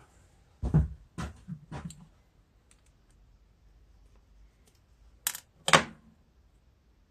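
Short metallic clicks and taps of needle-nose pliers on a small-engine carburetor while the float hinge pin is worked out, against a sheet-metal workbench. There is a quick cluster of taps in the first two seconds, then two sharp clicks about five seconds in, the second the loudest.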